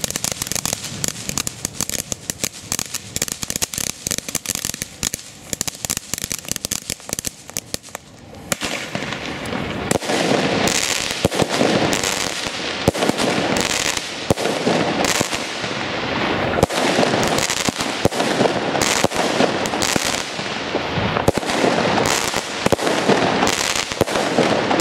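A 10-shot consumer firework cake firing. For the first eight seconds or so there is dense, fine crackling from sparks near the ground. After that it turns louder, with shots bursting overhead into crackling stars: a fast, continuous run of sharp cracks and pops.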